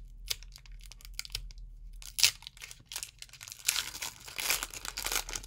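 Foil wrapper of a Pokémon TCG booster pack crinkling and tearing as it is pulled at to open it: scattered sharp crackles, one louder snap a little after two seconds, then a dense run of crinkling from about three and a half seconds in.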